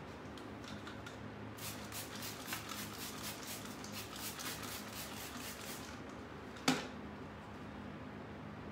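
Handheld trigger spray bottle spritzing quickly in a rapid series of short hissing squirts for about four seconds, then a single sharp knock, the loudest sound, as the bottle is set down.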